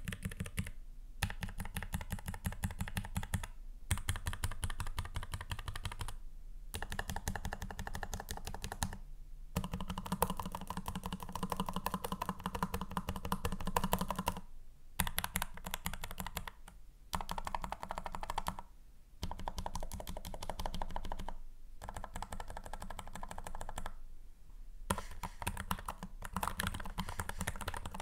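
Azio Cascade Slim low-profile mechanical keyboard, with pre-lubed switches and dampers, being clacked in rapid runs of keystrokes with short pauses between, the spacebar among the keys struck, then typed on with both hands near the end. The keystrokes sound full, with no hollowness or metallic ping.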